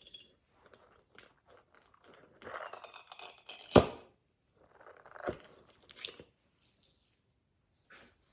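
Slime being pressed and stretched by hand, giving irregular sticky crackling and tearing sounds. There is a sharp pop about four seconds in, the loudest sound, and another about a second and a half later.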